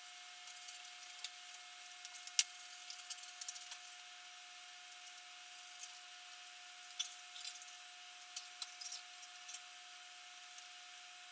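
A faint steady hum with scattered light clicks and ticks, the sharpest about two and a half seconds in and small clusters of them in the second half.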